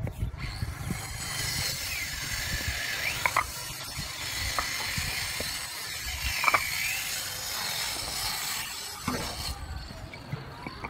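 Concrete paving blocks knocking against one another as they are laid and set by hand on a sand bed: a few separate sharp knocks several seconds apart. A steady high hiss runs underneath and cuts off near the end.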